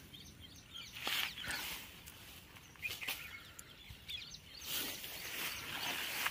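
Soft, intermittent rustling of grass around a freshly caught fish lying on the bank, a few brief rustles over a faint outdoor background.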